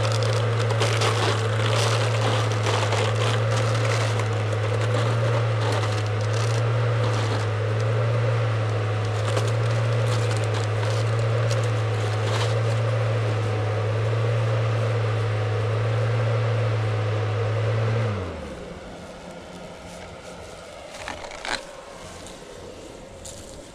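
Small electric ventilation fan in a hornet-suit hood whirring with a steady low hum. About three-quarters of the way through it switches off and winds down with a falling pitch. Light ticks and crackles are scattered throughout.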